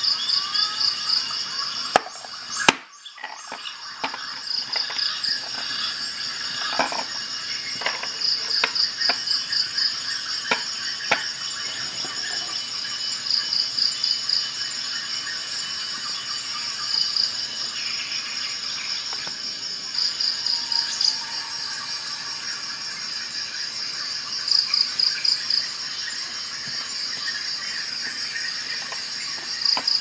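A cricket chirps in short, high, pulsed trills every few seconds over a steady high background tone. A sharp click comes about three seconds in, then lighter clicks and taps over the next several seconds as metal multi-tools are handled and set down on a glass tabletop.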